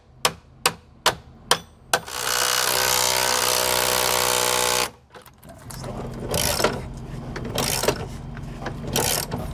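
Impact wrench spinning off the old electric step's mounting nuts under the motorhome chassis, a loud steady run of about three seconds that cuts off abruptly. Before it come five sharp clicks about half a second apart, and after it scattered metal clinks and rattles as the loosened hardware is worked free.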